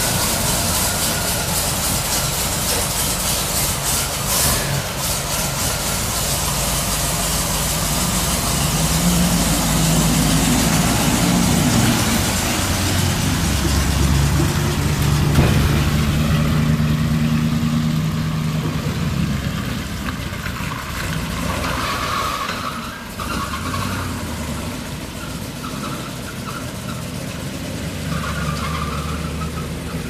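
The 6.0-litre gas V8 of a 1984 Chevrolet Blue Bird school bus running, its pitch stepping up and down as it revs, with a steady hiss over it in the first half.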